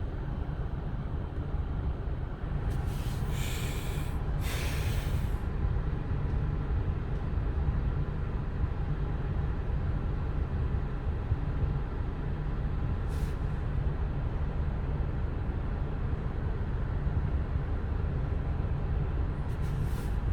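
Car engine idling, a steady low rumble heard inside the cabin, with two short hissing sounds about three and four and a half seconds in and a brief one later.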